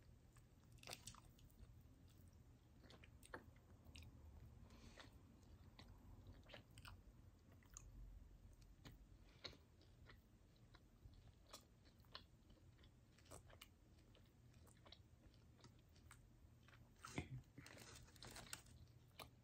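Faint close-up eating sounds from a person chewing a sauced chicken wing: soft bites and chewing with scattered small clicks, a little louder about 17 seconds in.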